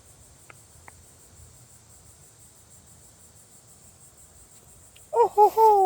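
Crickets keep up a faint, steady high trill in the background. Near the end a woman's loud, falling 'oh ho ho' exclamation comes in over them.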